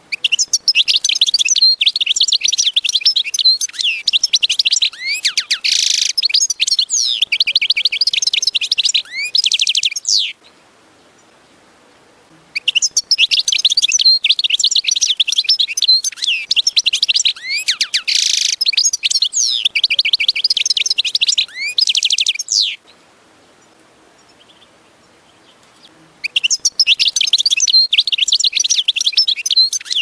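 European goldfinch singing in three long bouts of rapid twittering and trills, each about ten seconds, separated by short pauses; the third bout starts near the end.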